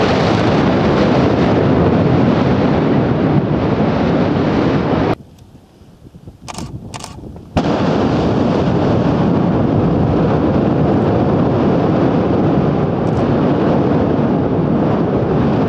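Continuous roar of Dukono volcano's explosive eruption, ash and volcanic bombs blasting from the vent. About five seconds in it cuts off suddenly to a much quieter stretch with two short sharp sounds, and the roar comes back just as suddenly some two and a half seconds later.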